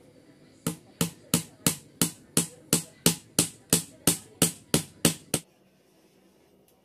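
A small nail being driven into a thin wooden slat with a pair of pliers used as a hammer: about fifteen quick, even taps at roughly three a second, then the tapping stops.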